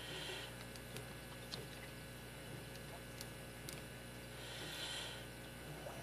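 Faint, scattered metallic ticks of a lock pick working the pin stack of a Yale six-pin padlock held under tension, over a steady low electrical hum.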